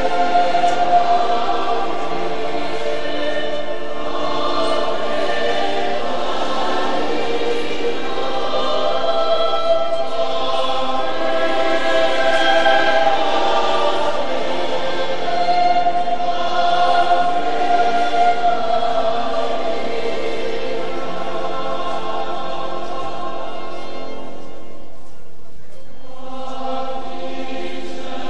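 Many voices singing a slow religious hymn together, with long held notes and a short pause near the end before the singing resumes.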